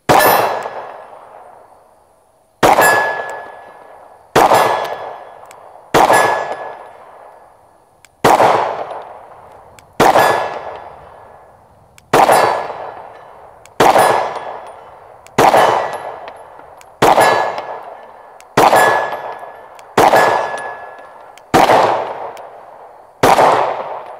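Glock 19 Gen 5 9 mm pistol fired slowly with tracer rounds: fourteen shots about one and a half to two and a half seconds apart. Each shot is followed by a long fading ring from a steel gong being hit.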